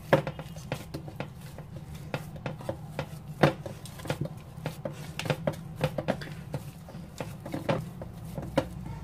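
Hands kneading soft pita-bread dough in a bowl: irregular soft slaps and knocks, a few each second, as the dough is pressed and folded against the bowl, with the sharpest knock about three and a half seconds in. A steady low hum runs underneath.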